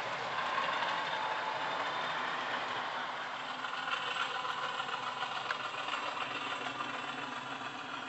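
Sound-fitted model class 50 diesel locomotive playing its Coastal DCC engine recording of the English Electric 16CSVT diesel running, from a Zimo MX645 decoder through a small 40×28 mm speaker.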